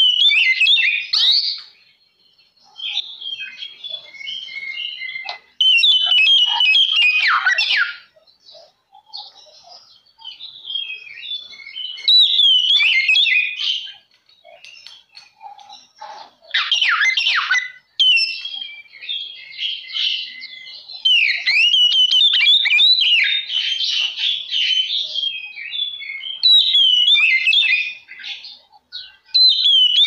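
Oriental magpie-robin (kacer) singing loudly in full 'gacor' form: a varied run of rapid whistled notes and trills, some sweeping up and down in pitch, in phrases of one to a few seconds broken by short pauses.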